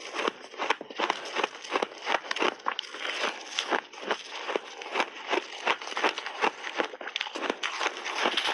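A mouthful of crunchy shaved ice being chewed close to a lapel microphone: a rapid, uneven run of sharp crunches and crackles.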